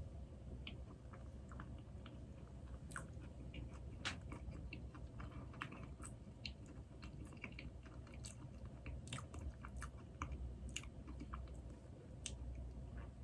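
Close-miked chewing of soft doughnut, with many small wet mouth clicks coming irregularly.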